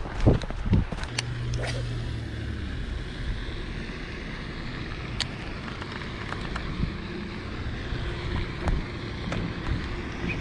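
Steady wind rumble on the microphone of a body-worn action camera, with a few sharp knocks from handling near the start.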